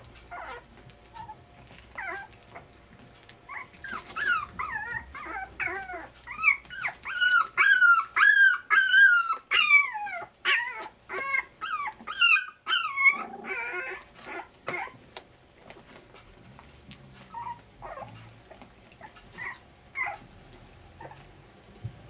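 A litter of three-week-old French bulldog puppies whimpering and squealing: many short, high squeals that slide up and down in pitch, packed closest and loudest in the middle, then thinning out to fainter squeaks.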